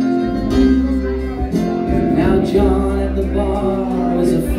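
Loud music with a held bass line, guitar and singing.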